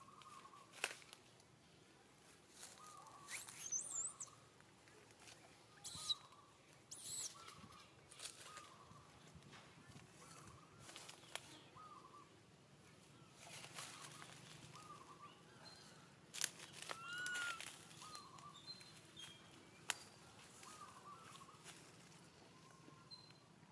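A young macaque giving faint, short squeaking cries over and over, about one a second, with brief bursts of rustling and scraping on bark and leaves as it climbs the tree.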